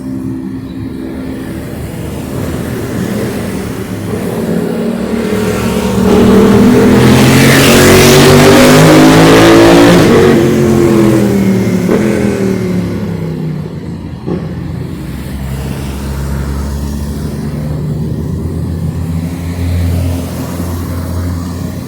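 A car passing close by on the street: its engine note rises as it approaches and falls away as it goes past, with a loud rush of tyre noise at its closest, about seven to ten seconds in. Afterwards lower, steadier traffic engine sound continues.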